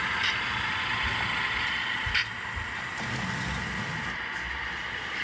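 Model diesel locomotive running as it pulls away, a steady hum with low rumble, and one sharp click about two seconds in.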